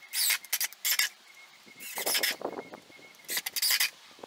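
Cordless drill with a countersink bit boring into pressure-treated decking boards in four short bursts.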